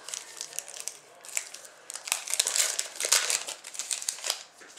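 A trading card pack's wrapper being torn open and crinkled, with irregular crackling in spurts.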